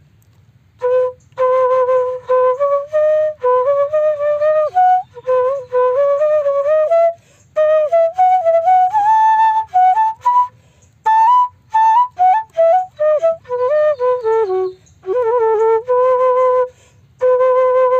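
Bamboo transverse flute (Carnatic venu) playing a swarakalpana passage built from short repeated note groups. The notes step up and down with slides between them, in phrases broken by short pauses. It begins about a second in.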